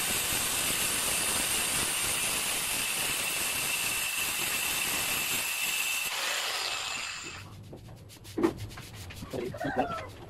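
Handheld angle grinder cutting dry through a stone countertop with an abrasive disc, a steady grinding hiss with a high whine. About six seconds in the cut ends and the grinder spins down to a stop, leaving a few short, faint pitched sounds near the end.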